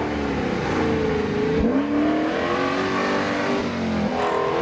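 Off-road 4x4's engine revving up and down under load as it crawls through deep ruts, with a sharp rise in revs about one and a half seconds in.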